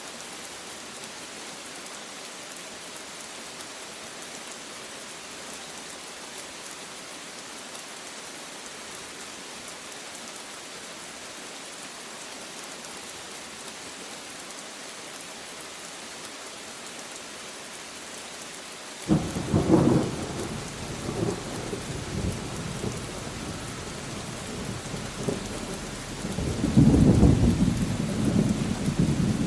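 Steady rain falling in an even hiss; about two-thirds of the way through a thunderclap breaks in suddenly and rolls on as rumbling thunder, swelling loudest again near the end over the continuing rain.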